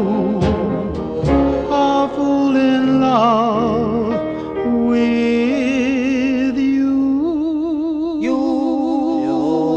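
Oldies rock and roll / rhythm-and-blues record playing: a melody of long held notes with strong vibrato, sung or played, over a sustained backing.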